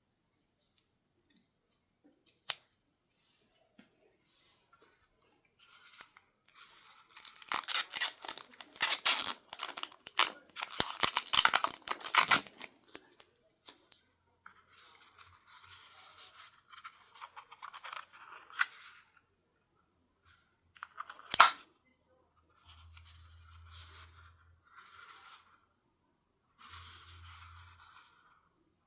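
Packaging being opened by hand: bursts of rustling and tearing of paper and plastic, loudest for several seconds near the start, with a couple of sharp snaps.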